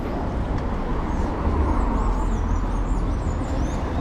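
Wind rushing over the action camera's microphone as the bike rolls along, with road traffic passing beside it. Faint high chirps come and go from about a second in to near the end.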